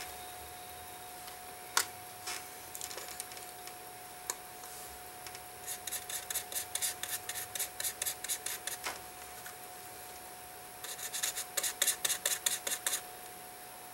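Rust being scrubbed off a small rusty watch wheel with a hand tool: quick back-and-forth scraping strokes, about four a second, in two runs of a few seconds each, with a few light tweezer clicks before them.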